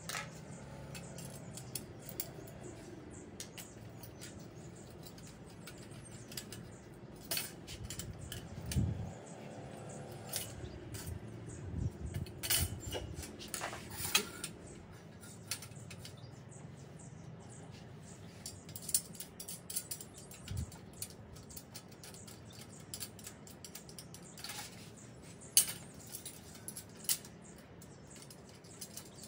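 Stainless steel rack parts and small bolts clinking and tapping against each other and the tiled floor as the rack is fitted together by hand: scattered, irregular metal clicks, with one sharper knock about three-quarters of the way through.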